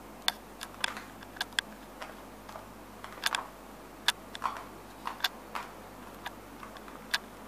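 Light, sharp clicks and taps, about fifteen at irregular intervals of one or two a second, over a low steady background.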